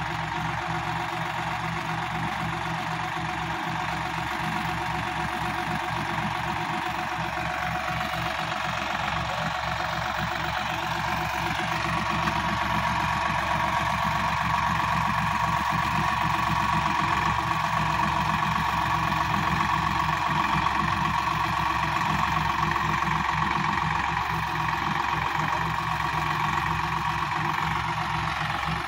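Sonalika DI 60 tractor's diesel engine running steadily, growing a little louder for a stretch in the middle and easing back near the end.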